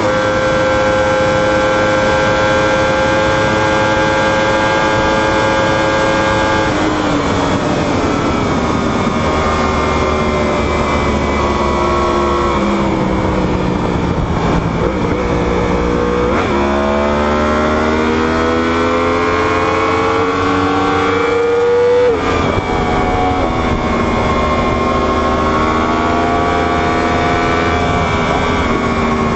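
Superbike inline-four engine running hard at high revs. Its pitch holds steady, falls about seven seconds in, then climbs steadily under acceleration and drops sharply near the twenty-two second mark as it shifts up.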